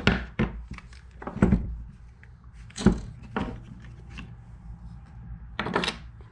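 Plastic knocks and clicks as the screwed-off housing halves of a small battery chainsaw are pried apart and handled, about half a dozen sharp knocks spread unevenly.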